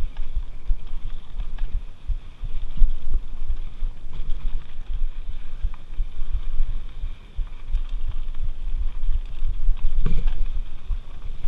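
Mountain bike riding fast down dirt singletrack: wind buffeting the camera microphone in irregular low thumps, over a steady hiss of tyres on dirt, with scattered knocks and rattles from the bike over bumps, one stronger knock about ten seconds in.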